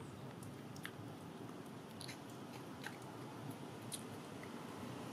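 Long-tailed macaque chewing food: a scattering of small crunches and clicks, about half a dozen over a few seconds, over a faint steady background noise.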